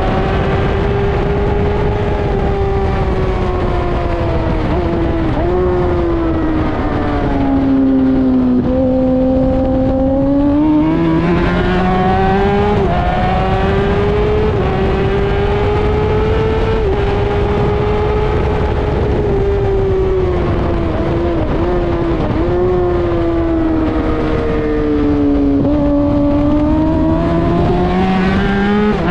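Racing engine at high revs on a lap of a race track. Its pitch stays high, drops twice under braking with quick downshift steps, then climbs again under acceleration, over steady wind and road noise.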